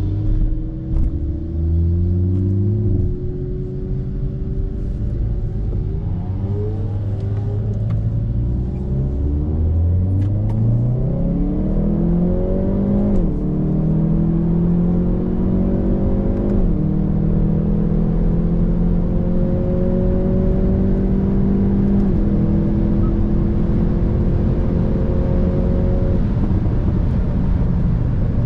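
Hyundai i30 N's 2.0-litre turbocharged four-cylinder engine, stock exhaust, accelerating hard through the gears. The revs shift up and down for the first ten seconds. After that they climb steadily and drop sharply at upshifts about 13, 16 and 22 seconds in.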